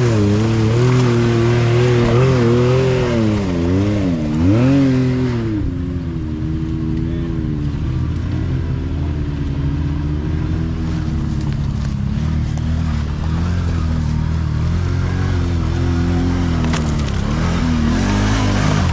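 Side-by-side's engine revving up and down hard as it churns through a deep mud hole, settling into a steadier engine note after about five seconds; near the end the revs rise again as an ATV pushes into the mud.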